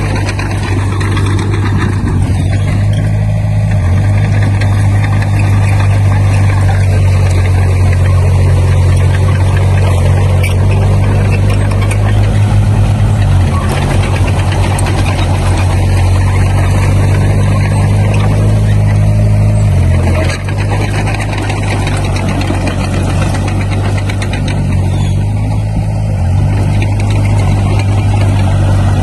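Komatsu D20P bulldozer's diesel engine running steadily under working load, heard close. The engine note briefly drops about two-thirds of the way through, then picks back up.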